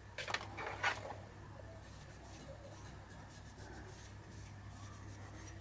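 Faint handling and rubbing: a few brief scuffs in the first second, then a cloth quietly wiping an aluminium Super Cub piston, over a low steady hum.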